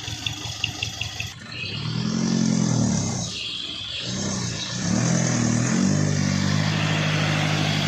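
Toyota Dyna truck's diesel engine working hard on a steep climb. It revs up, drops back as if at a gear change, revs up again and then holds a steady pull.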